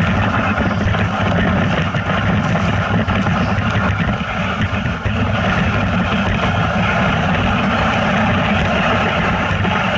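A vehicle's engine running steadily while under way, a continuous loud drone with a brief dip about five seconds in.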